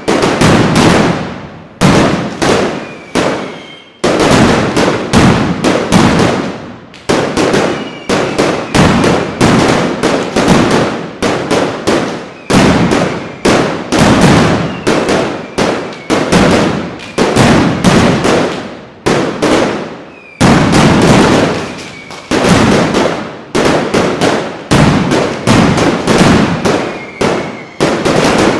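Mascletà: strings of masclet firecrackers going off in dense, rapid volleys of loud bangs, a new wave about every second, each trailing off in echo between the buildings. A few short falling whistles cut through the bangs.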